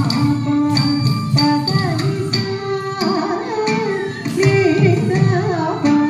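Carnatic music for a Bharatanatyam dance: a singing voice sliding between notes over steady, evenly paced drum and cymbal strokes.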